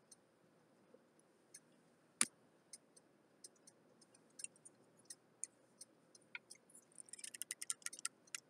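Lid of a pint glass jar of pickles being twisted open by hand: a quick run of small clicks and scrapes near the end. Before it, only scattered faint clicks, with one sharper click about two seconds in.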